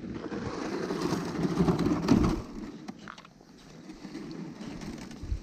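A loaded plastic fishing sled dragged on a rope over bare ice, scraping and rumbling, with footsteps on the ice. It is loudest about two seconds in, then eases.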